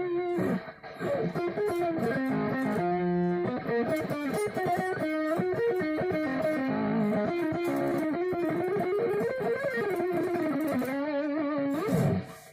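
Solo Stratocaster-style electric guitar playing an improvised neoclassical lead: quick runs of notes alternating with held notes sung out with vibrato. Just before the end a held note slides steeply down in pitch.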